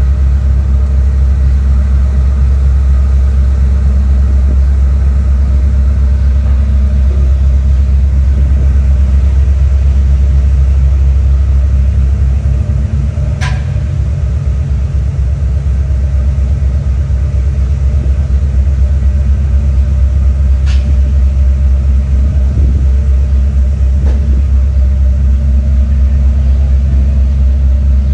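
Car ferry's engines running at the quay: a loud, steady low drone. Two sharp clicks, one about halfway through and one about two-thirds through.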